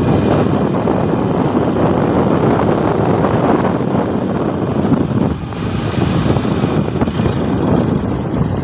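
Steady noise of a small engine running on the move, with wind buffeting the microphone.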